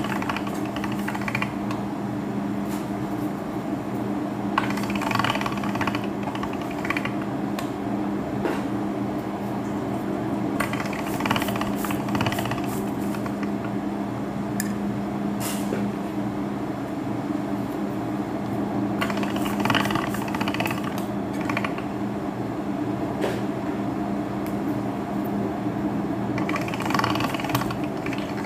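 Pasta roller machine running with a steady mechanical hum as sheets of dough are fed through its steel rollers, with a brief louder, noisier stretch every six to eight seconds.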